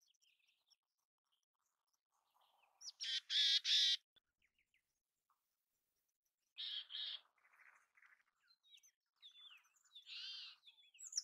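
Mountain chickadee calling: short runs of harsh, buzzy notes, the loudest run about three seconds in and softer runs of two or three notes later on.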